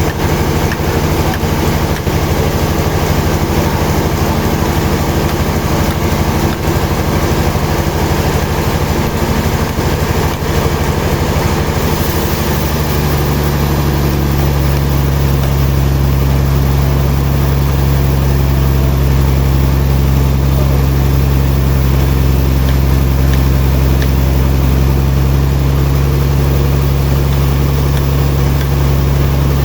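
Heavy machinery engine running steadily with a low hum. About twelve seconds in it settles into a steadier, stronger drone.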